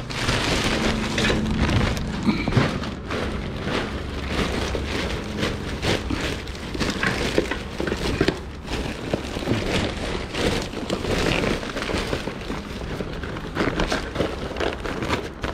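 Continuous rustling and crinkling of papers and belongings being rummaged through by hand, with scattered small knocks.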